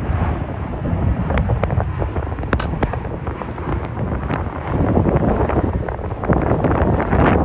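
Wind buffeting the microphone, gusting louder about five seconds in, over the steady rumble of an Embraer E190's twin turbofan engines passing low overhead on approach with gear down.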